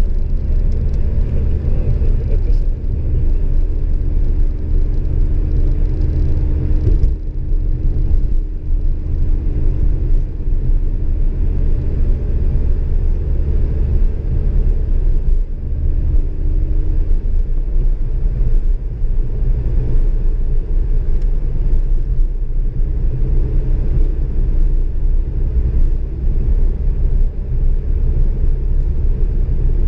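Car driving, heard from inside the cabin: a steady low rumble of engine and tyres on asphalt, with a faint engine hum that shifts slightly in pitch now and then.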